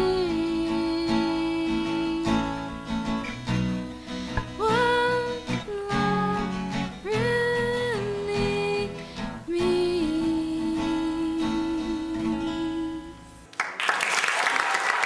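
Female voice singing with long held notes over strummed acoustic guitar. Near the end the song stops and applause breaks out.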